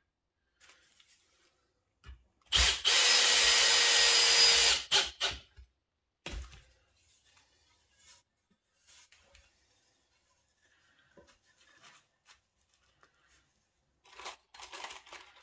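Cordless drill running steadily for about two seconds, drilling into a pine batten. A single knock follows, then light handling sounds and, near the end, a rattle of screws in a box.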